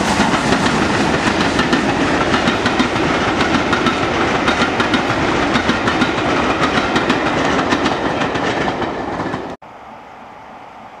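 Passenger coaches of a steam-hauled train rolling past at speed, their wheels clattering rhythmically over the rail joints. The sound cuts off suddenly near the end and gives way to a much quieter steady background.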